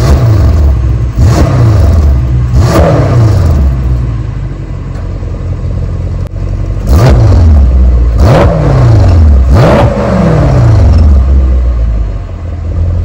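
2018 Mercedes-AMG E63 S twin-turbo V8 revved while parked, heard at the exhaust tips with the exhaust in comfort mode. Three quick throttle blips, a few seconds of steady idle, then three more blips about seven seconds in, each climbing fast and falling back more slowly.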